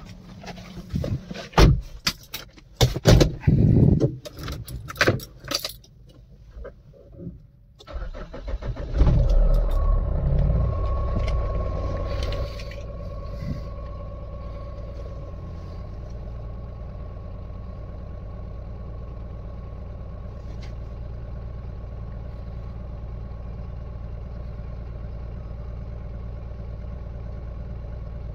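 Scattered knocks and clicks of handling for about the first eight seconds. Then the Mahindra Bolero's diesel engine cranks and starts, runs high and loud for a few seconds, and settles into a steady idle with a thin steady whine over it.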